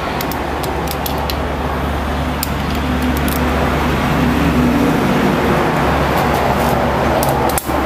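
A steady rushing noise with a low hum underneath, with a few faint clicks over it and a brief drop near the end.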